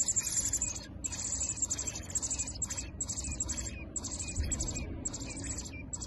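American robin nestlings begging for food: high-pitched, rapid chirping in repeated bursts about once a second.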